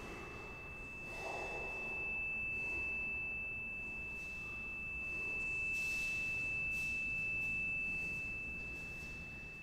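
A steady, high-pitched pure tone held unbroken at one pitch, over faint soft noise that swells about a second in and again about six seconds in.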